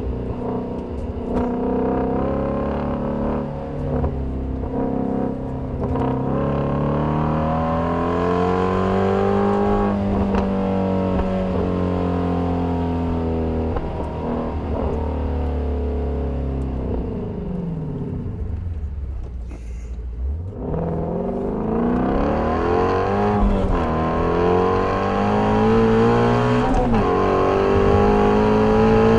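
2019 Shelby GT350's 5.2-litre flat-plane-crank V8 driven hard through a manual gearbox, its revs climbing and falling again and again with gear changes and lifts. The revs sink to a low point about twenty seconds in, then climb strongly again.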